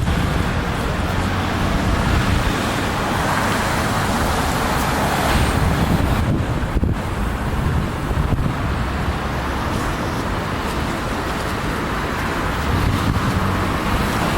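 Strong wind buffeting the microphone with a constant low rumble. Through it a road vehicle passes, swelling over the first few seconds and fading out about six seconds in.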